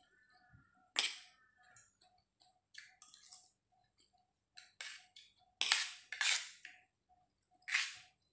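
Metal fork and spoon clinking and scraping against a stainless steel tray: a handful of sharp strikes, the loudest pair about six seconds in. Under them a faint steady ticking repeats about three times a second.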